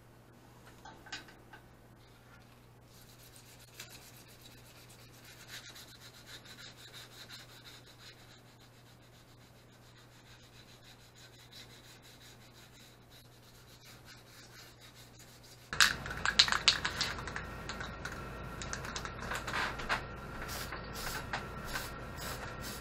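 Faint rubbing of sandpaper by hand on an engine's recoil starter cover; then, about two-thirds of the way in, a sudden much louder stretch of an aerosol spray-paint can hissing in bursts as the cover is sprayed red.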